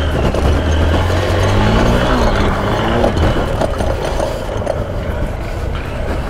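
Single-cylinder Hero motorcycle engine running under throttle while riding over rough grassy ground, its pitch rising and falling about two to three seconds in.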